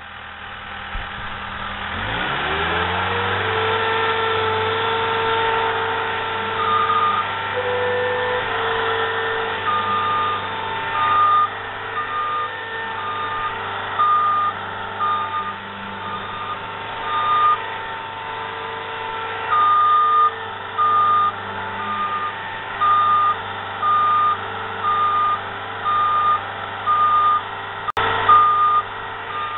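A compact construction machine's diesel engine throttles up about two seconds in and runs steadily under work. From about seven seconds in, its reverse alarm beeps about once a second while the machine backs up, with short gaps. There is a single sharp knock near the end.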